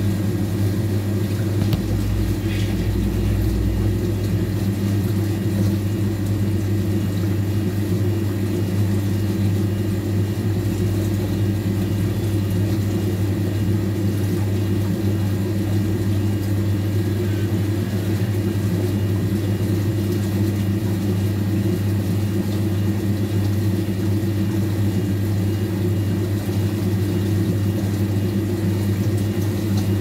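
Old washing machine running: a loud, steady electric-motor hum with no breaks or changes.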